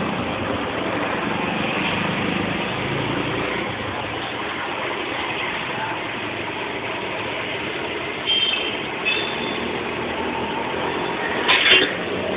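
A motor vehicle's engine running steadily, with a couple of brief high-pitched sounds about two-thirds of the way through and a short loud burst near the end.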